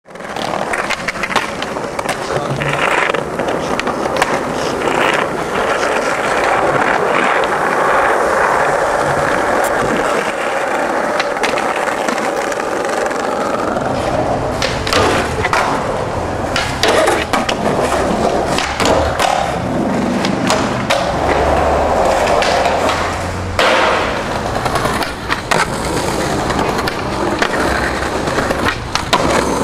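Skateboard wheels rolling over pavement, with many sharp clacks of the board popping and landing. A deeper rolling rumble joins about halfway through.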